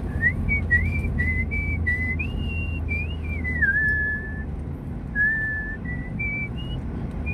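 A person whistling a wandering tune inside a moving car, over the steady low rumble of the engine and tyres.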